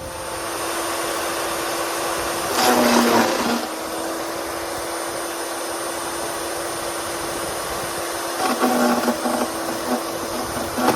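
Electric wood chipper starting up and running with a steady motor hum, with louder, rougher stretches about three seconds in and again near the end.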